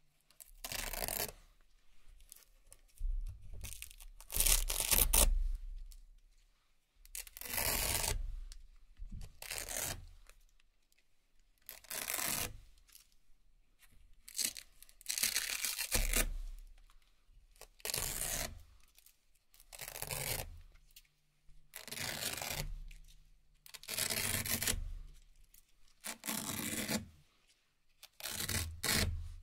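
Hook-and-loop (Velcro) cable ties being ripped off a table one after another. Each pull gives a crisp tearing rip, and a new one comes about every two seconds.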